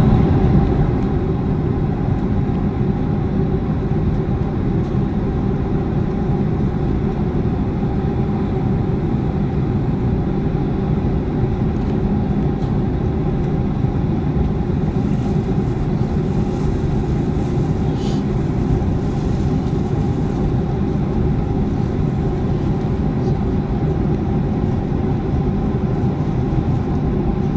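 Boeing 737-400 CFM56 jet engines running steadily, a constant low rumble with a steady hum above it.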